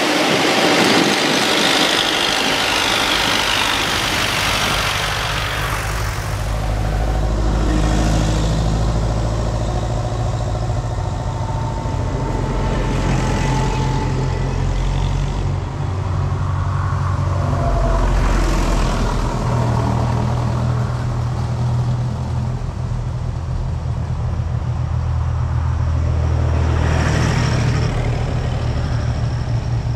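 Vintage tractors driving past one after another, their engines running at a steady road pace, with a swell of noise each time one goes by close. A loud rushing hiss fills the first six seconds.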